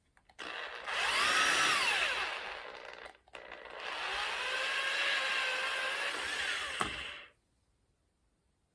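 A handheld power tool, drill-like, runs twice: one run of about three seconds, then a second of about four, its motor pitch rising and falling as it speeds up and slows down.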